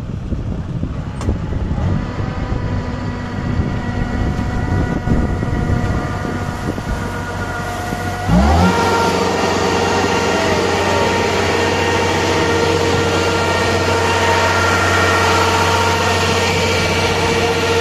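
Farm machinery engines running, a Kubota combine harvester unloading paddy through its auger into a carrying tank. About eight seconds in, a louder engine comes in with a quick rise in pitch and then runs steadily.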